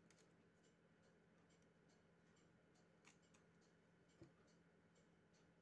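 Near silence, with faint paper handling: a small handmade paper candy being twisted and unwrapped by hand, giving scattered soft clicks and rustles. A slightly louder soft knock comes just after four seconds in.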